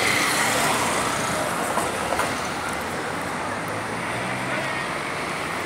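Street traffic noise: a motorcycle passes close at the start, over a steady rumble of engines and tyres.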